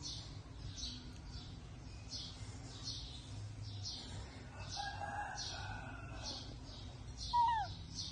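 Steady, repeated high-pitched chirping, about one and a half chirps a second, with one short falling squeak near the end that is the loudest sound.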